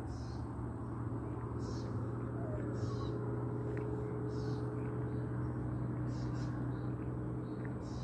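Evening outdoor ambience: a steady low hum, with a short high chirp repeating every second or two.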